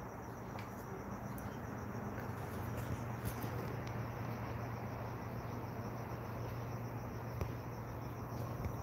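Steady low hum and hiss of a quiet room, with faint high cricket chirping.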